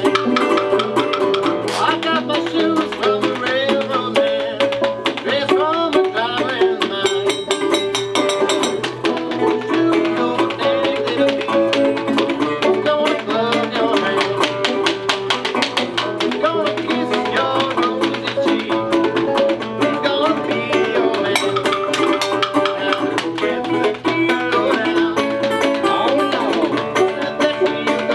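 Live string band playing: banjo and guitar picking, with a washboard scraped in a fast, steady rhythm.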